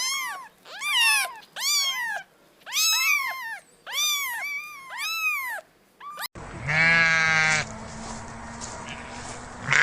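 A kitten meowing over and over: about six short, high mews, each rising then falling in pitch. About six seconds in, a cut brings a much lower, wavering animal call from another farm animal.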